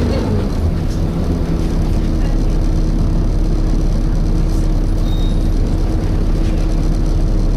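Inside a Volvo B7TL double-decker bus, its diesel engine and radiator cooling fan running with a steady drone. A brief faint high squeak comes about five seconds in.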